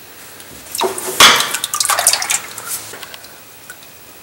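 Used engine oil splashing and dripping from a just-removed spin-on oil filter into a metal drain pan. There is a burst of splashing about a second in that dies away by about three seconds.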